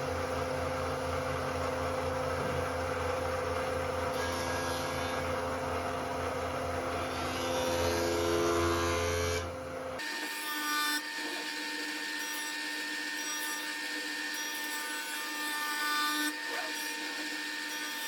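Jointer running as white oak boards are edge-jointed, a steady machine sound with a low hum, growing a little louder for a second or two near its end. About ten seconds in it cuts abruptly to a different steady power-tool sound without the low hum.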